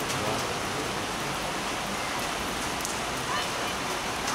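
Steady hiss of rain falling, with scattered faint drop ticks. A faint distant voice calls out about three seconds in.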